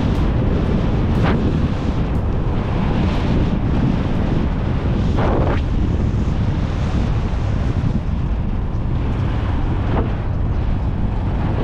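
Wind rushing over the microphone of a moving motorcycle as a steady loud rumble, with the bike's running noise underneath and a brief louder gust about five seconds in.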